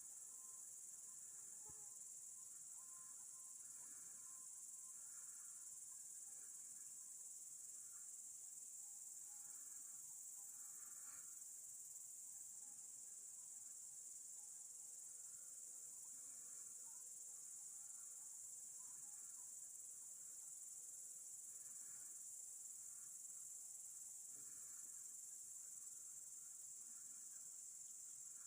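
Crickets chirring in a faint, steady, high-pitched chorus.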